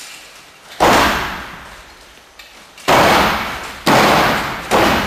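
Four heavy thuds on the boxing-ring floor from wrestlers brawling, one about a second in and three close together later, each echoing in the large hall.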